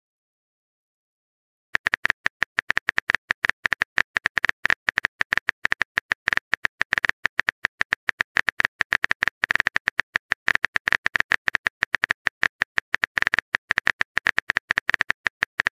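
Simulated phone keyboard typing clicks, rapid and even at several clicks a second, starting about two seconds in as a text message is typed out letter by letter.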